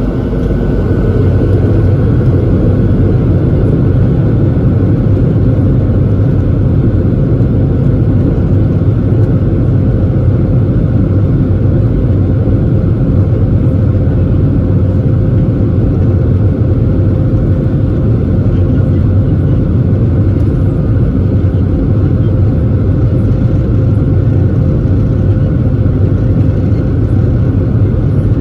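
Boeing 737-700 with its CFM56-7B turbofans at high thrust during departure, heard from inside the cabin: a loud, steady low rumble with a steady hum above it. It swells over the first second or two, then holds.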